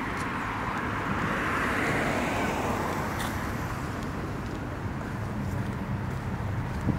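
Street traffic: a vehicle passing, its tyre and engine noise swelling to a peak about two seconds in and then fading over a steady low rumble.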